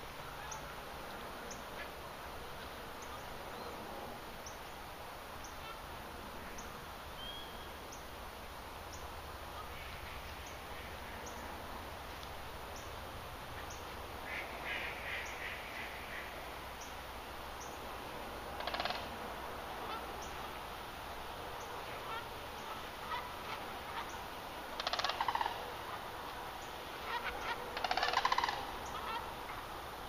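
Geese and other waterfowl calling from a pond in scattered bursts of honking, the loudest cluster near the end, over a steady outdoor hush.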